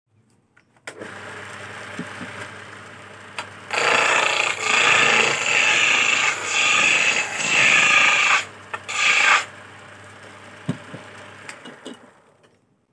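Belt-driven wood lathe starting up about a second in and running with a steady hum. From about four seconds in, a hand-held cutting tool turns a square teak blank round, a loud scraping rasp broken by short pauses, which stops at about nine and a half seconds. The lathe then runs on and dies away near the end.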